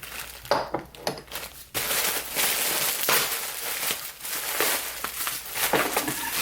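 Candle packaging being crinkled and unwrapped by hand: a few separate crackles, then continuous dense crinkling from about two seconds in.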